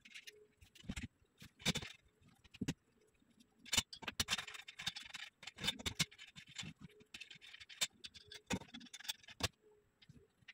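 Metal bed frame being put together by hand: irregular clicks, taps and knocks of metal parts and a small tool as the legs and rails are bolted together, with two stretches of scraping.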